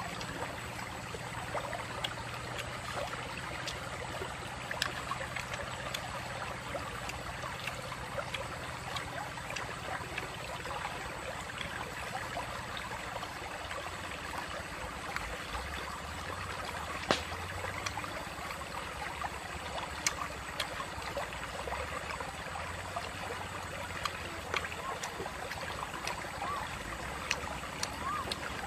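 Shallow stream running and babbling over stones, steady throughout, with a few sharp clicks standing out above it.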